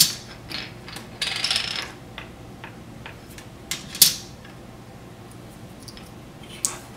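Plastic Connect 4 checkers clicking as they are dropped into the grid, with a sharp click at the start and the loudest one about four seconds in. A short rattle comes just after a second in, and smaller clicks of checkers being handled come in between.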